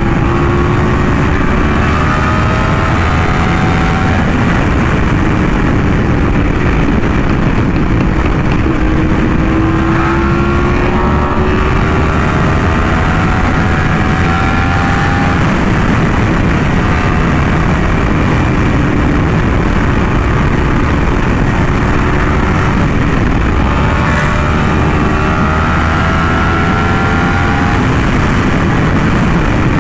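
Yamaha R1M sportbike's crossplane inline-four through an SC Project exhaust, running at highway speed and pulling through the gears, its pitch climbing slowly several times over, under a steady rush of wind noise.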